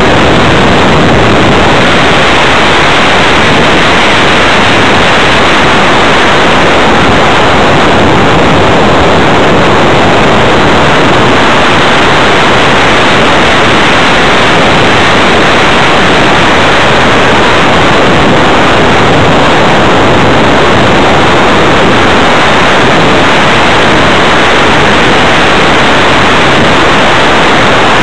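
Loud, steady rush of wind over the microphone of an onboard keychain camera on an RC hotliner in flight, an even noise with no clear motor tone.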